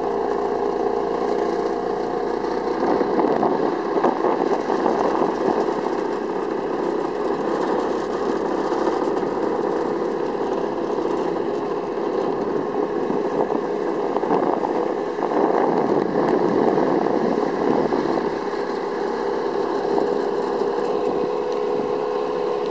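Small boat's motor running steadily while under way, with a haze of water and wind noise.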